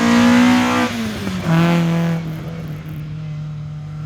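Competition car accelerating hard, its engine note rising, dropping at a gear change about a second in, then pulling again before settling into a steadier, quieter note.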